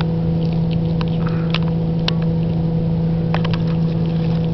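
A steady, motor-like low hum, the loudest sound, with scattered sharp little crunches and clicks over it: a cat chewing through a small bird's bones.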